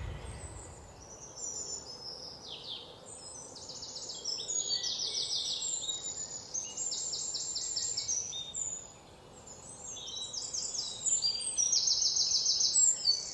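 Several birds chirping, with many overlapping series of rapid, high-pitched trilled notes and a brief lull about nine seconds in.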